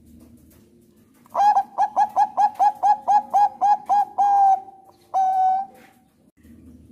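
Bangkok-strain zebra dove (perkutut bangkok) singing its song: a quick run of about a dozen short, clipped coos starting about a second in, ending in a longer held note, then one more long coo.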